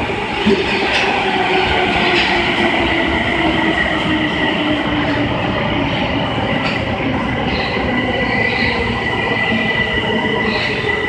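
Osaka subway 22 series train pulling out of the station, its motors whining in steady tones over the rumble of wheels on rails, with a brief knock about half a second in.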